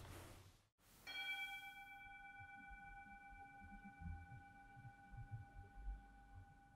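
After the room tone fades out, a single bell tone is struck about a second in and rings on through the rest, with several overtones, slowly fading.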